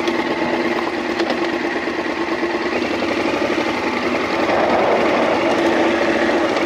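Off-road motorcycle engine running steadily while riding, heard close up from on the bike; it gets a little louder about four seconds in.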